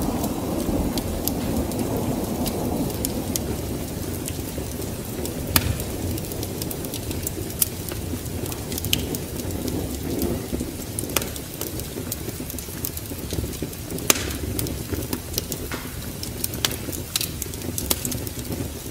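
Wood fire crackling, with sharp, irregular pops every second or so, over a low rumble of a rainstorm with thunder that fades over the first few seconds and swells again briefly near the middle.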